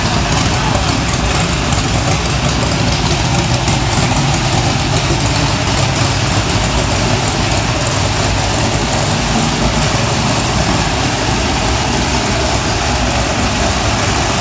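Jacobs seven-cylinder radial aircraft engine idling steadily, without a propeller.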